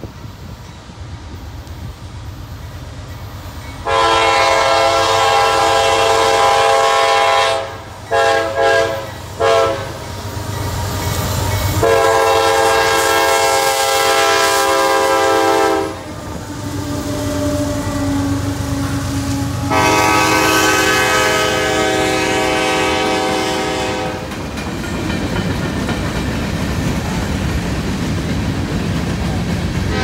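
Freight diesel locomotive's air horn, on a GE AC44CW, blowing a long blast, three quick short blasts, then two more long blasts, the pitch dropping lower as the engine passes. It is followed by the steady rumble and clickety-clack of freight cars rolling by.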